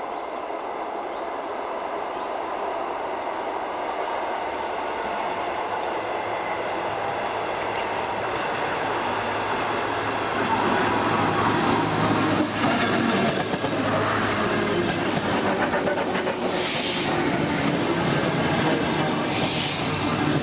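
DT1 diesel multiple unit approaching and passing close by, its rumble growing steadily louder, with a low steady hum once the front arrives and two short high-pitched bursts near the end.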